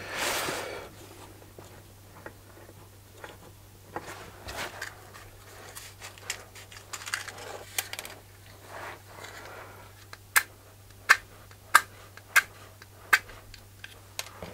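Bench handling and rustling, then a run of short sharp scratches about every two-thirds of a second in the last few seconds: a damp match struck again and again on its box without catching. A low steady hum lies under it all.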